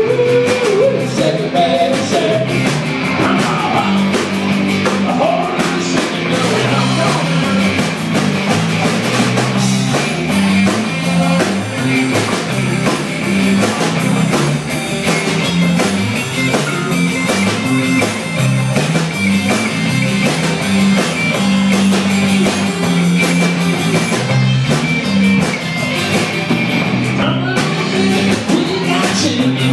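Live bar band playing an uptempo rock-and-roll number on electric guitars and drum kit, with a walking low line under steady drum and cymbal strokes.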